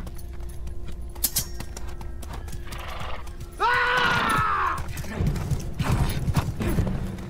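A horse neighs once, a pitched call lasting about a second midway, followed by the uneven beat of hooves, over orchestral film music.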